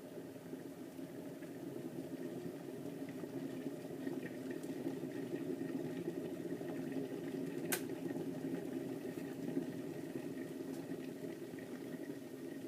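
Kettle water heating towards the boil, a steady rumbling hiss, with one sharp click about eight seconds in.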